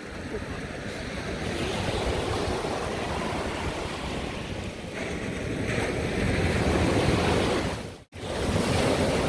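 Ocean waves washing up the sand in surges that swell and ease, with wind on the microphone. The sound cuts out for an instant about eight seconds in.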